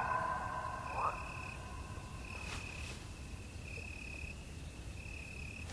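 Insect chirping: short even chirps, each about half a second long, repeated roughly every one and a half seconds, as the last of the music fades out at the start. A sharp click sounds near the very end.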